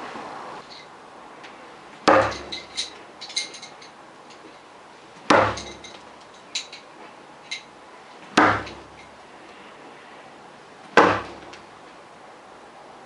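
Steel bo-shuriken throwing spikes striking a wooden target four times, about every three seconds; each hit is a sharp thud followed by a few light metallic clinks.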